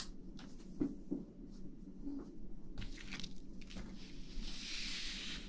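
Soft rustling and handling noises close to an ASMR microphone: scattered light clicks and brushes, then a gentle hiss from about four seconds in.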